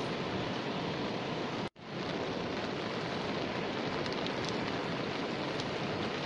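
Light rain falling on river water, a steady hiss with a few faint drop ticks after about four seconds. The sound cuts out completely for a moment just under two seconds in.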